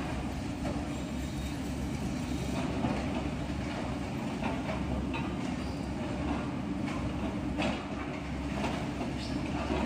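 Small electric motor and gearbox of a remote-control model dump truck running steadily, with scattered light clicks.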